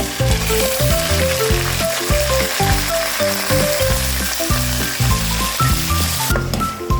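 Food sizzling as it fries in hot oil in a pan, over background music with a melody and a bass line. The sizzle starts just after the start and cuts off suddenly about six seconds in.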